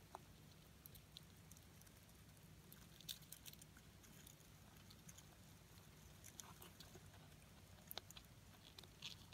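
Faint, irregular small clicks and crackles of a Blaptica dubia roach colony feeding on an orange, over a low steady hum.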